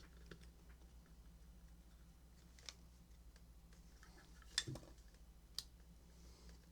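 A few sharp, light metallic clicks and taps of small tools and parts being handled at a workbench, the loudest a little past the middle, over a faint low hum.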